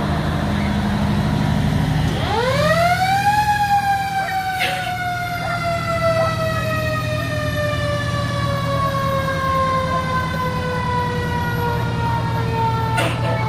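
Fire truck siren winding up quickly about two seconds in, then slowly falling in pitch for the rest of the time, over the steady hum of the truck's engine. Two brief clicks come through partway.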